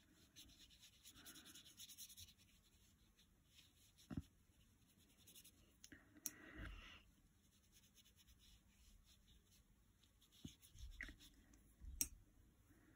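Faint brushing of a wet watercolour paintbrush on paper, with a few light taps and clicks of the brush against a plastic paint palette, the sharpest about four seconds in and near the end.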